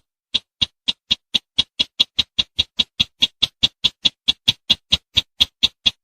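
Sintar semak bird call, as played for luring: a series of short, sharp notes that speeds up steadily to about four a second.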